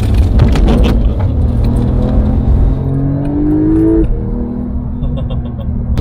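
Porsche 911's flat-six engine driven hard, its pitch rising steadily for about two seconds and then dropping abruptly about four seconds in as the revs fall, over a low rumble.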